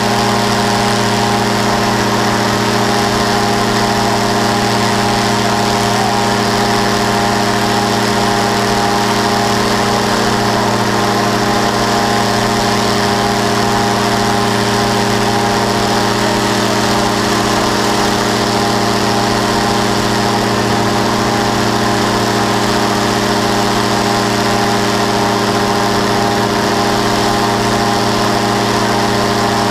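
Powered parachute's engine and propeller running at steady power in flight: a constant drone made of evenly spaced tones whose pitch does not change.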